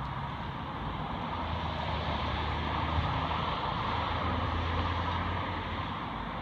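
Road traffic: a passing vehicle's engine hum and tyre noise swell in the middle and then ease off, over a steady traffic hiss.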